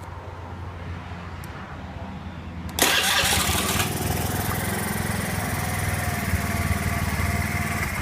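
Honda Zoomer X scooter's single-cylinder engine starting: a low hum, then about three seconds in a short burst of cranking as it catches at once and settles into a steady idle. It starts now that its new fuel pump motor holds about 3 bar of fuel pressure.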